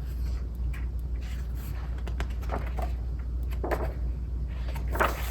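Soft rustles and light clicks of a picture book's pages being handled and turned, over a steady low hum.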